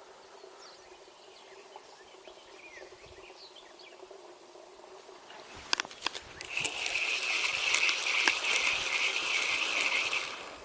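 A few sharp clicks, then a spinning fishing reel being wound for about four seconds: a steady, rippling whir that stops abruptly.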